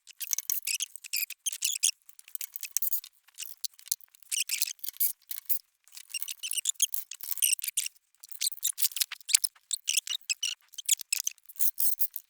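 Rapid, irregular small clicks and scrapes of hand tools working on a small engine's fuel line and hose clamp, thin and high-pitched with nothing low in them.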